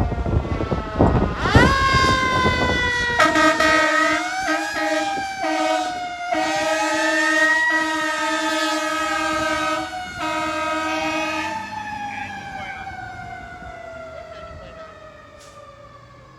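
Fire engine responding. Its siren winds up about a second and a half in, then the air horn sounds in long blasts with a few short breaks for about eight seconds while the siren rises and falls. After the horn stops, the siren winds slowly down.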